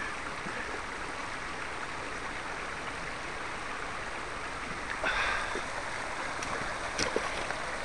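Fast-flowing river rushing steadily, with a brief louder splash about five seconds in and a couple of sharp clicks soon after.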